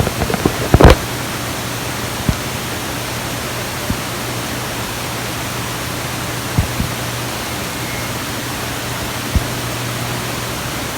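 Garage door opener running as the door travels: a steady hum under a noisy rush, with a few clicks, cutting off at the end.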